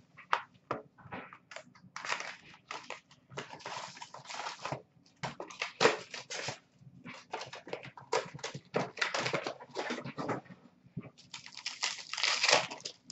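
Upper Deck SPx hockey card box and pack wrappers being torn open and handled: irregular crinkling and tearing bursts, with cards shuffled in between.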